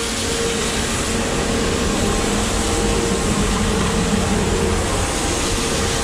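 Grain-handling machinery at the bins running steadily: an even mechanical drone with a faint constant hum, from the grain auger taking corn from the unloading truck and the bin's aeration fan.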